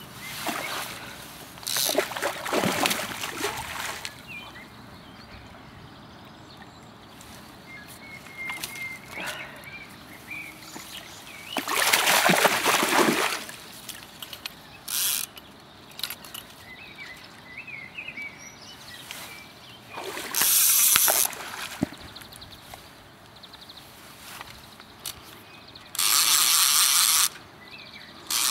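Fly reel's click-and-pawl drag ratcheting in about five bursts as a hooked brown trout is played, with the fish splashing at the surface.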